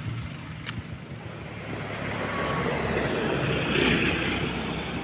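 Single turboprop engine of a Cessna Grand Caravan running on the runway: a steady rush with a low hum that swells from about two seconds in and is loudest near four seconds.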